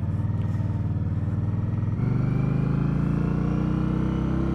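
Indian Scout's V-twin engine running while riding at a steady speed. About two seconds in, the engine pulls harder, its pitch rising steadily as the bike accelerates in gear.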